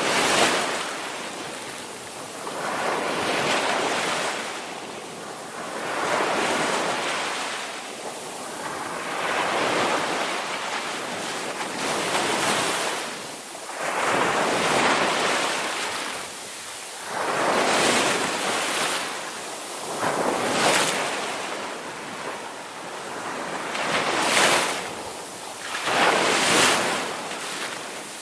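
Ocean waves breaking and washing in, a rushing hiss that swells and ebbs every two to three seconds, about a dozen surges in all.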